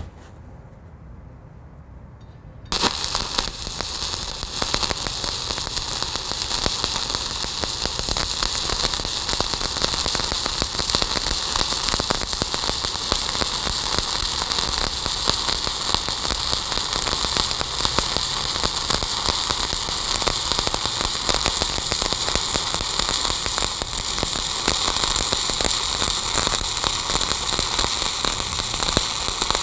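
Stick (SMAW) welding arc from a 1/8-inch 7018 electrode at about 125 amps, laying a cap bead on half-inch steel plate. A short quiet pause, then the arc strikes suddenly about three seconds in and burns as a steady, dense crackle and hiss.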